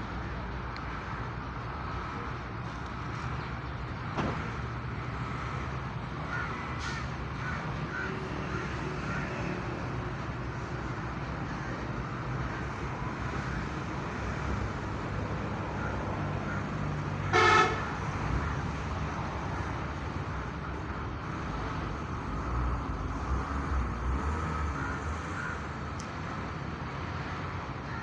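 Outdoor street ambience with a steady traffic rumble and crows cawing. A vehicle horn toots once, briefly and loudly, about two-thirds of the way through.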